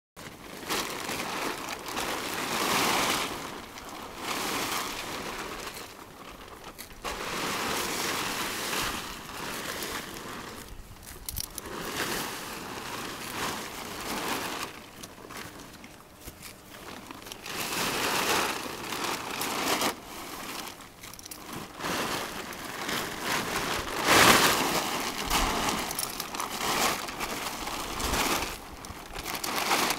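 Large plastic tarp crinkling and rustling as it is pulled and draped over a horse, in repeated swells a few seconds long, loudest about 24 seconds in.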